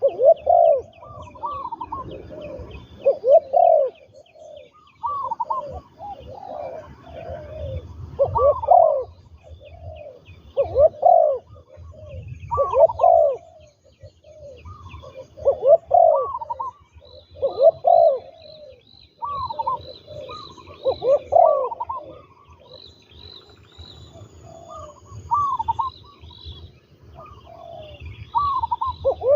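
Spotted doves cooing: repeated short coo phrases every second or two, some overlapping as if more than one bird calls. Small birds chirp faintly and high behind them.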